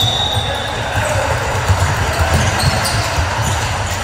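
Basketball bouncing on a gym court during play, with irregular dull thuds. A steady high whistle note stops just after the start.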